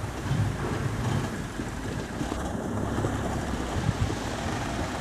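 Mitsubishi Fuso light dump truck's diesel engine running at low revs with a steady rumble as the truck moves slowly along a dirt track.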